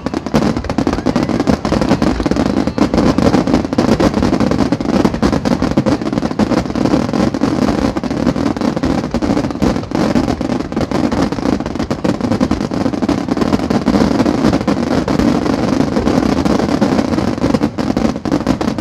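Rapid-fire fireworks barrage, a starmine: many aerial shells bursting in quick succession, their bangs and crackles overlapping into one continuous loud din.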